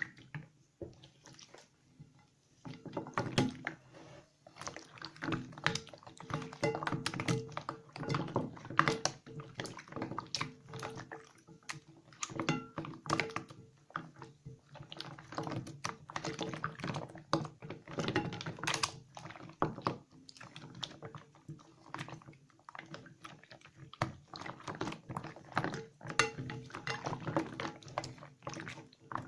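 Small pieces of soaked leftover soap being lathered and squeezed in wet hands, with irregular wet squishing and crackling from the soap and foam. It starts after a quiet first couple of seconds and eases off for a moment about two-thirds of the way through.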